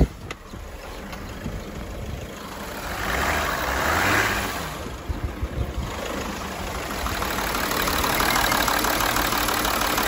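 Audi Q7's six-cylinder diesel engine idling roughly on five cylinders, with one failed injector blanked off. It gets louder and fuller about seven seconds in.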